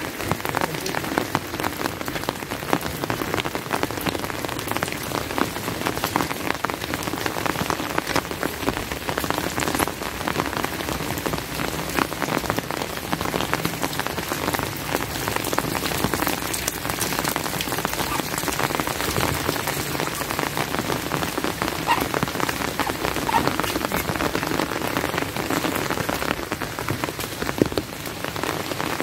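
Steady heavy rain, a dense patter of individual drops hitting close by.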